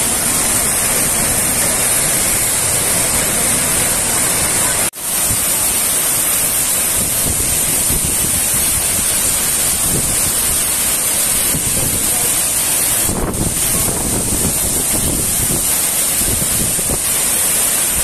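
Loud, steady rush of a tall waterfall plunging into a pool close by, thick with spray. The sound cuts out for an instant about five seconds in, then resumes unchanged.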